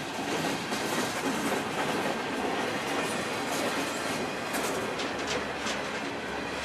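Intermodal freight train cars rolling past at speed: a steady rumble of steel wheels on rail, with a run of sharper clacks about five seconds in as wheel sets cross rail joints.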